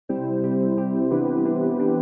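Background music of sustained ambient chords, starting abruptly at the very start, with a change of chord about a second in.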